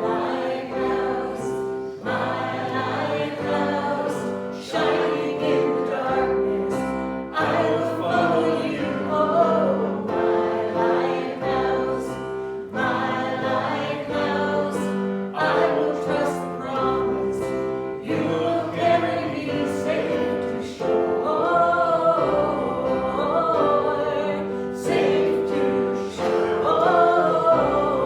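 Church congregation singing a slow gospel worship song together with piano accompaniment.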